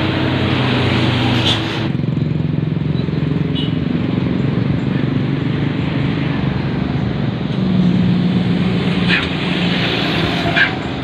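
Heavy truck diesel engine running hard, its pitch shifting about two seconds in and rising near eight seconds, with a few brief sharp noises.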